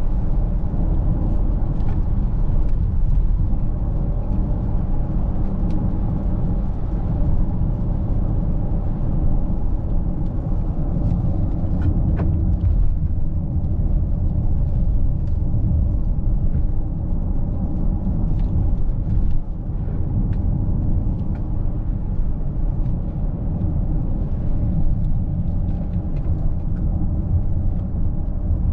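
Cabin noise of a Mercedes-Benz GLC 300de on the move: a steady low rumble from tyres and drivetrain with an even hum on top and scattered faint ticks. The loudness dips briefly about two-thirds of the way through.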